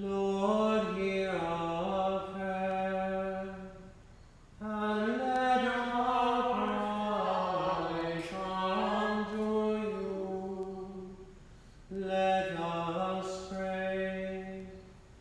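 A single voice chanting unaccompanied in three phrases, each held mostly on one reciting pitch with small steps up and down, in the sung Compline office.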